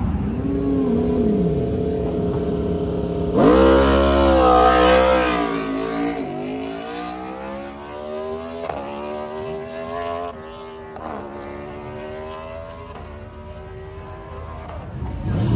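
Sprint-racing motorcycle engine running at the start line, then launching hard about three and a half seconds in. It accelerates away with a rising engine note broken by a string of quick upshifts, growing fainter as it pulls away down the quarter mile.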